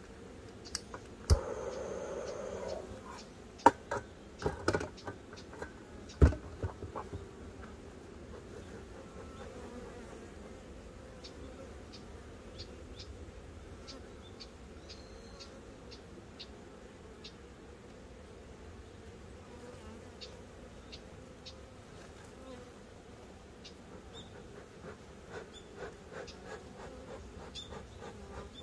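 Honeybees buzzing steadily around the hive, louder for about a second and a half near the start as one flies close. A few sharp clicks and knocks stand out in the first six seconds, then only the hum with faint ticks.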